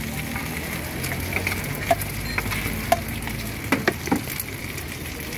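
Cimin and cilor frying in a round-cup cast-iron mold pan over a gas burner, a steady sizzle. A metal scraper clicks and scrapes against the pan about two and three seconds in, with a quick cluster of clicks near four seconds.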